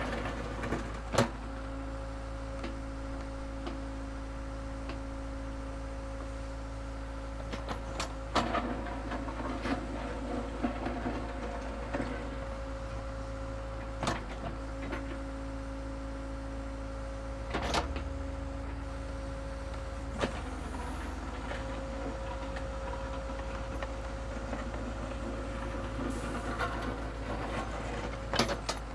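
Construction machine digging dirt: its engine runs with a steady hum, broken by a handful of sharp knocks spaced several seconds apart.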